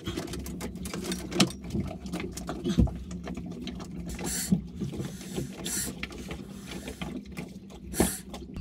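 Irregular clicks, knocks and rustling of a clear plastic suction hose and its fittings being handled in a boat's engine compartment, with a few short hisses, over a steady low hum.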